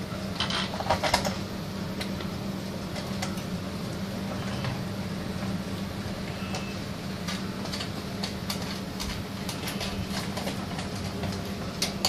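Light metallic clicks and clinks of a spanner turning a nut on a steel wire display rack, with a louder rattle of metal about a second in, over a steady low hum.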